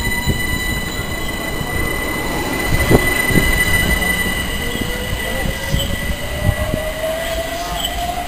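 London Overground Class 378 electric train pulling away: its motor whine rises steadily in pitch as it accelerates, over the low rumble and knocks of the wheels on the track, with a steady high whine throughout.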